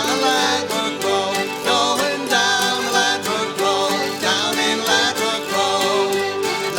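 Folk band playing a lively tune on several instruments over a steady beat.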